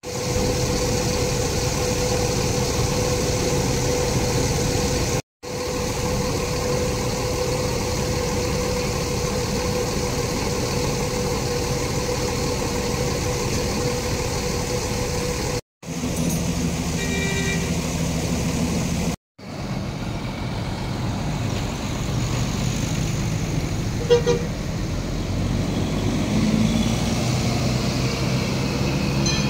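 Large diesel coach buses running at low speed as they drive past, in several short clips cut together. A vehicle horn sounds briefly about halfway through.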